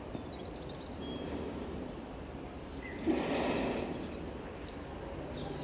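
A single audible breath, a breathy rush lasting just under a second, about three seconds in, taken while resting in child's pose.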